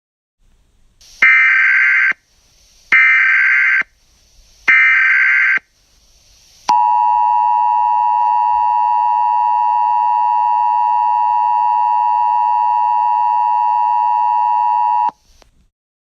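Emergency Alert System broadcast signal: three short bursts of the SAME digital header, then the steady two-tone EAS attention signal held for about eight seconds before it cuts off suddenly.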